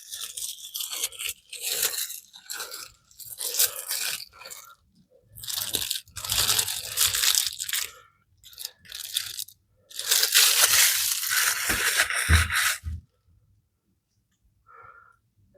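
Crinkly packaging wrap being handled and pulled off in a run of crackling bursts, the longest about ten seconds in, stopping a few seconds before the end.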